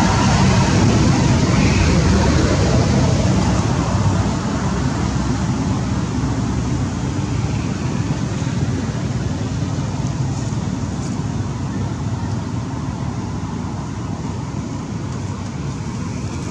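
Steady rushing and rumbling roadside traffic noise, slowly fading.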